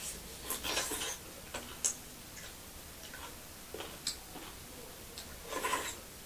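Close-miked eating sounds: a scatter of short wet mouth clicks and smacks as two people chew roast chicken legs and buckwheat dhido.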